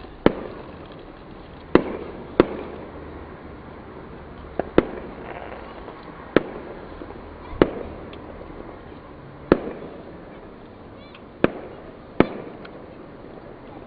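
Fireworks going off: about ten sharp bangs at irregular intervals, each with a short fading rumble.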